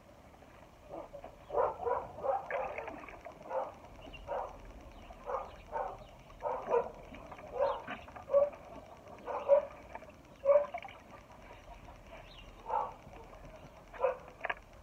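A dog barking over and over, short barks singly or in quick pairs, starting about a second in.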